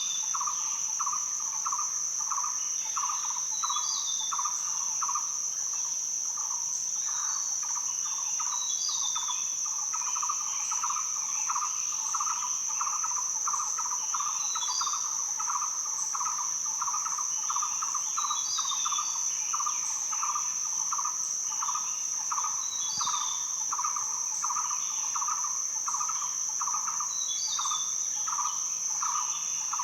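Rainforest ambience: a steady high-pitched cicada drone, a lower chirp pulsing about twice a second, and a bird repeating a short call every few seconds.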